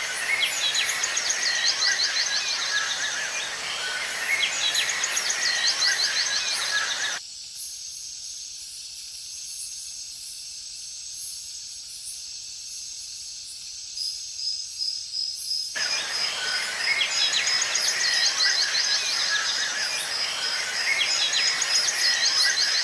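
Tropical forest ambience: a dense chorus of insects and birds with repeated fast rattling trills. About seven seconds in, the fuller sound cuts out abruptly, leaving only a thin high insect buzz for about eight seconds, and then the full chorus comes back.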